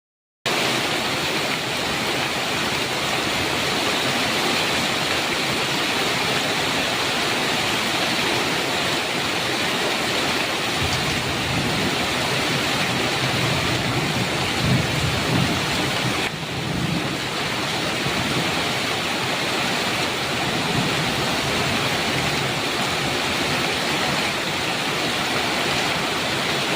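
Heavy rain falling with a steady hiss, after a half-second gap of silence at the very start. A low rumble of thunder rises under the rain from about 11 seconds in and fades by about 17 seconds.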